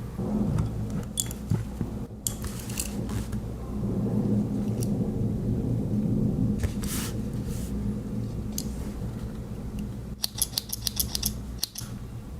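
Swiss Army knife tools being handled: scattered small metal clicks of blades and tools being worked, ending in a quick run of about ten clicks near the end.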